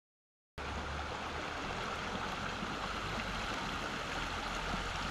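Small mountain creek flowing, a steady watery rush that starts abruptly about half a second in and holds an even level, with a low rumble underneath.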